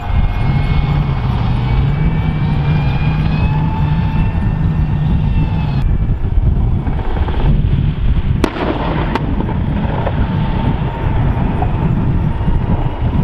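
M1 Abrams tanks running, their gas-turbine engines giving a steady whine over a low rumble. About six seconds in the sound changes, and two sharp bangs follow less than a second apart on the live-fire range.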